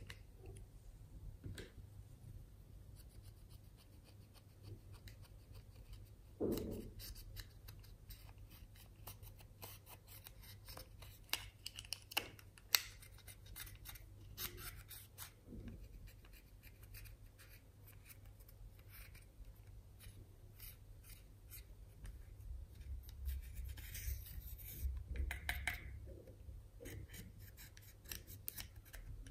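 Pressed powder eyeshadow being scraped and crumbled out of a plastic toy palette with a plastic applicator: a faint run of small scratches, clicks and taps, with a louder knock about six seconds in and sharp clicks around twelve seconds in.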